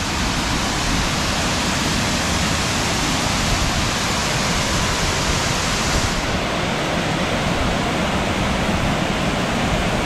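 Gooseberry River's Middle Falls pouring, heard close up as a loud, steady rush of water. The river is running high after heavy rain, so the falls carry extra water.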